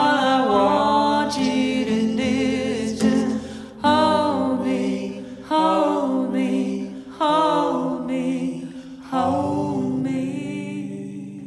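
A slow song: a singing voice in held, wavering notes, a phrase every couple of seconds, over sustained low accompaniment, fading out near the end.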